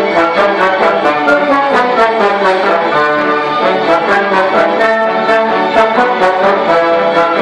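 Small orchestra playing a piece with a steady beat: strings and bassoons, with horns and a trombone close by and standing out.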